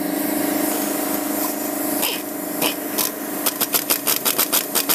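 Pneumatic impact wrench on the crankshaft pulley bolt: a steady hum at first, then from about three and a half seconds a rapid, even run of sharp hammer blows, about seven a second.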